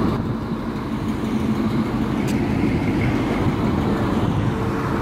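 Engine and exhaust of a custom early-1950s Chevrolet pickup, running at a low, steady pace as the truck drives past and pulls away.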